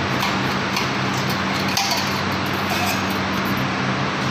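Steady hum of machinery with a constant low drone, with scattered light metallic clinks from a hand tool being worked on a metal bracket of a paper straw packing machine.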